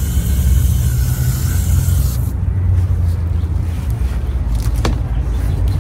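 Water hissing from a garden hose spray nozzle onto potting soil, cutting off about two seconds in. A steady low rumble runs underneath.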